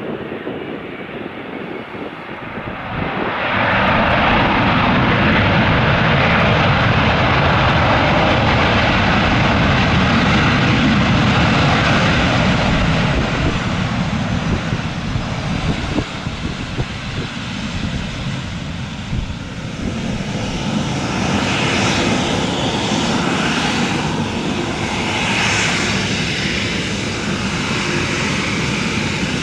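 Jet engines of a WestJet Boeing 737 (CFM56 turbofans) running loud on the runway, a continuous roar with deep rumble that swells sharply about three seconds in.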